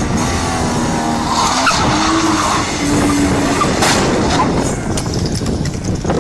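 Car tyres skidding and squealing over loud vehicle noise, with short pitched squeals.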